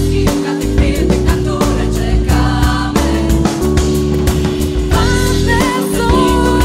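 Background music: a Polish pop song in a passage without lyrics, with a steady drum beat under sustained chords, and a higher melody line coming in about five seconds in.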